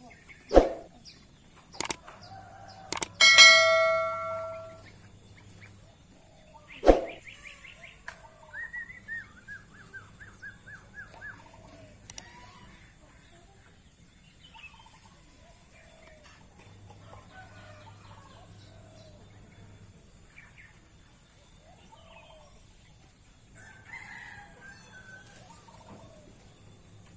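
A rooster crows once, a single held call about three seconds in, among a few sharp knocks. A short run of quick chirps follows around eight seconds in, over a thin steady high tone.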